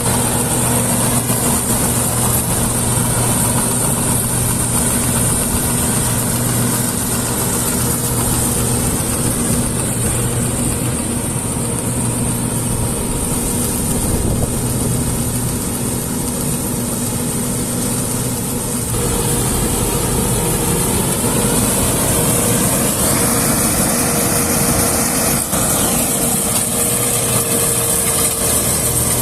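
Combine harvester's engine and machinery running steadily, a loud, even mechanical hum. The sound changes character about two-thirds of the way through.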